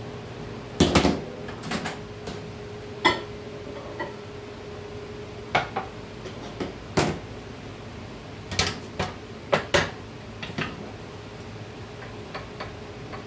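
Glass measuring cups of hot liquid soft plastic clunking and clinking as they are taken from the microwave and set down on a wooden cutting board, in irregular separate knocks with the loudest clatter about a second in.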